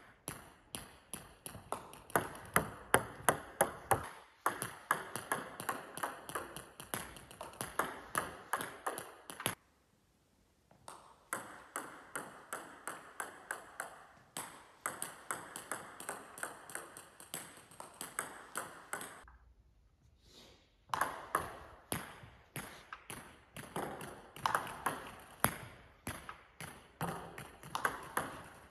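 Table tennis balls clicking on the bat and the table in quick succession as serves are played, several strokes and bounces a second. The clicking stops briefly twice.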